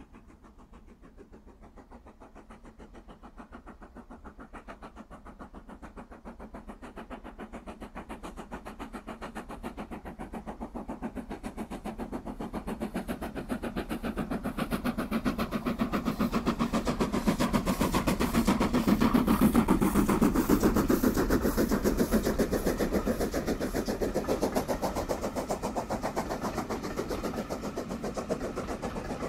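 BR Standard Class 4 2-6-0 steam locomotive 76079 approaching and passing with a train of coaches, its exhaust beating in a rapid, even rhythm. The sound grows steadily louder to a peak about two-thirds of the way through, then eases a little as the coaches run past.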